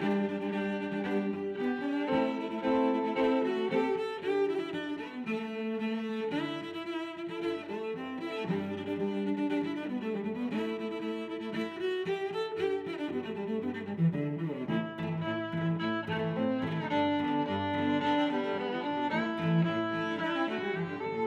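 Background music: a bowed-string tune with cello and fiddle, playing at a steady moderate level.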